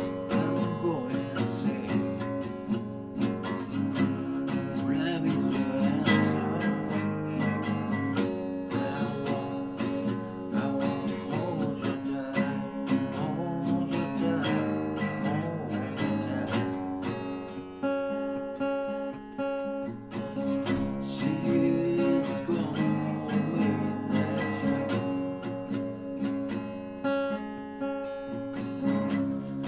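Steel-string acoustic guitar strummed with a pick, chords played in a steady rhythm.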